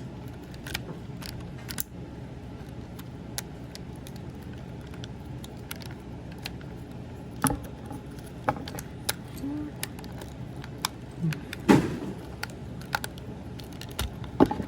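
Irregular small clicks and light rattles of hard plastic parts being handled and pressed together on a Transformers action figure as the windshield is worked to tab into place. The clicks come over a steady background hum, and a few louder snaps fall near the middle and toward the end.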